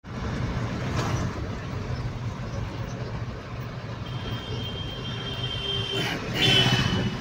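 Cab interior of a moving turbocharged diesel truck: steady engine drone and road noise while driving. A thin high whistle comes in about four seconds in, and a brief louder sound rises near the end.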